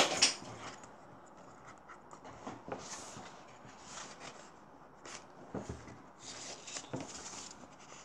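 Paper handling: soft, scattered rustles and scrapes as a picture book's paper envelope insert is lifted and folded back, with a sharp click at the very start.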